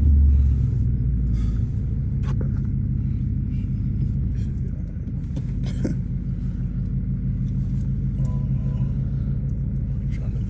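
A car running, a steady low rumble from the engine and road, with a few faint clicks and knocks.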